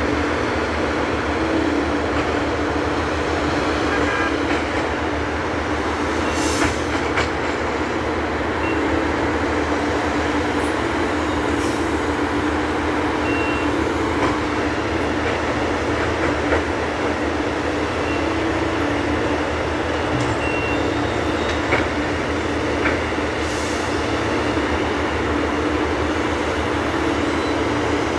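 Engine of a rail-mounted tie crane running steadily with a constant hum. A few sharp knocks sound at scattered moments.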